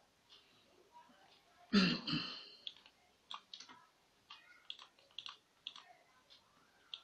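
Computer mouse buttons clicking, a few scattered single clicks. About two seconds in there is one louder, short noise.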